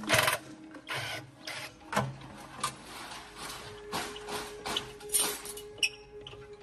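Hand tools working on metal engine parts: a series of irregular scraping strokes and clicks, roughly one or two a second.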